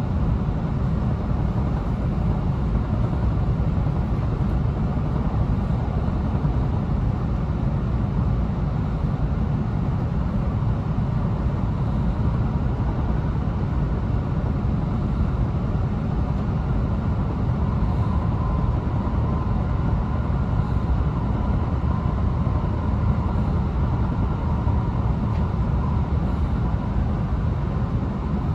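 Steady running noise inside the passenger cabin of an E2 series Shinkansen train under way, a low, unbroken rumble from the wheels on the rails and the moving car body. A faint, steady high hum joins in from about two-thirds of the way through until just before the end.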